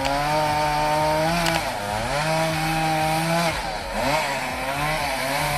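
Chainsaw engine running at high revs. Its pitch sags briefly about one and a half seconds in, sags again for longer around three and a half to four and a half seconds, and climbs back each time.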